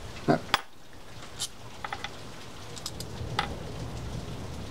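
Light metallic clicks and taps of small screws, a screwdriver and reel parts being handled on a workbench, about half a dozen sharp ones roughly a second apart, over a low steady hum.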